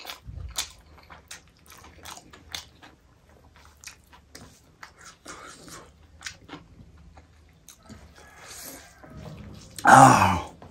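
Close-up mukbang eating of chicken gravy and rice with the fingers: wet chewing and many small lip-smacking clicks. Near the end comes one short, loud voiced sound from the eater.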